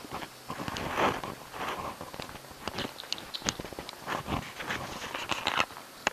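A cat playing on a hardwood floor: irregular light taps and scuffling, with sharp little clicks scattered through.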